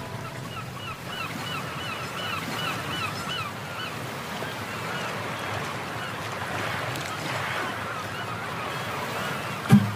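A steady rushing noise like surf, with a run of short, evenly spaced chirping calls, about three a second, over the first four seconds and fainter ones later.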